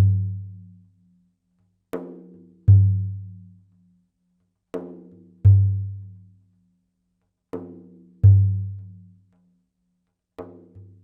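Slow drumbeat with no other instruments: each beat is a light ringing stroke followed by a deep booming stroke that fades away. The pair repeats about every three seconds.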